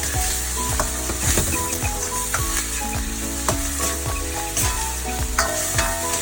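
Chopped vegetables and chili frying in hot oil in a pan with a steady sizzle, stirred with a utensil that clicks against the pan now and then.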